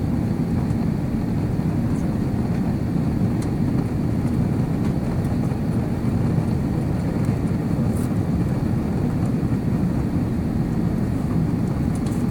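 Steady low rush of airflow and engine noise heard inside the cabin of an Airbus A350 in flight, from its Rolls-Royce Trent XWB turbofans, with a faint steady hum above it.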